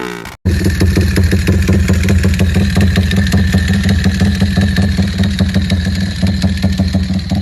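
Yamaha Y15ZR's single-cylinder four-stroke engine idling steadily through an aftermarket exhaust, with a rapid even pulse; it starts after a brief silent cut about half a second in.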